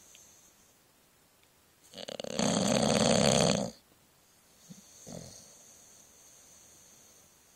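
Sleeping bulldog snoring: one loud snore about two seconds in that lasts under two seconds, then a short, much softer breath a second later.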